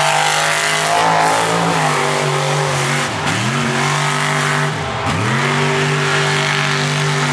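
Lifted mud-bog truck's engine revving hard at high rpm as it runs through the mud pit. The pitch is held high, dips twice, and climbs straight back up.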